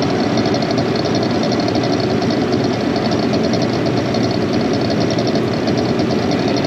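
Farm tractor engine running steadily at a constant speed, with an even rapid firing rhythm.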